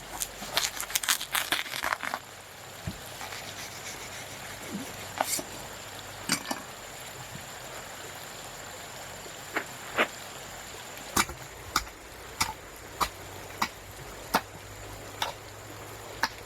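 Chopping: a blade striking wood in single, sharp strokes about every half to one second from about ten seconds in, over a steady background hiss. A quick cluster of similar knocks comes in the first two seconds.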